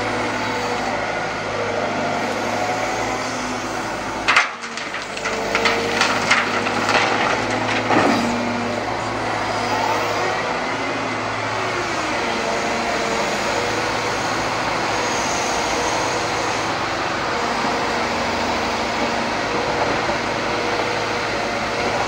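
Liebherr 918 wheeled excavator's diesel engine running steadily under hydraulic load. A loud clank comes about four seconds in, then a few seconds of knocking and scraping as the steel bucket works the soil and stones.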